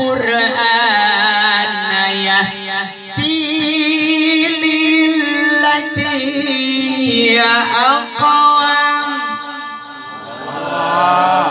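Music with melismatic singing: an ornamented, wavering vocal line over a low note held steady underneath.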